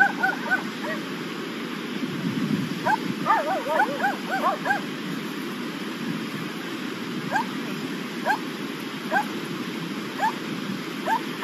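A dog barking in short, high yaps: quick runs of them at the start and about three seconds in, then single yaps about once a second, over the steady rush of a river.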